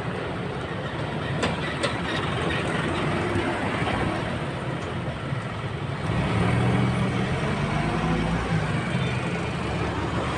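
Steady drone of a motor vehicle engine running. A deeper hum swells about six seconds in and drops away again a few seconds later. Two light clicks come about one and a half seconds in.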